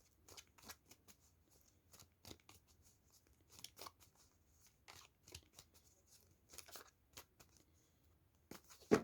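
Tarot cards being shuffled and handled: faint, irregular snaps and rustles, with one sharper click near the end.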